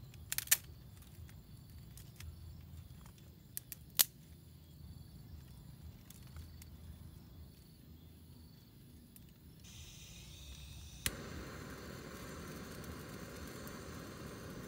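Sharp snaps of dry twigs being handled, twice early on. About eleven seconds in, a handheld butane torch lighter clicks alight and gives a steady hiss as its flame lights the kindling.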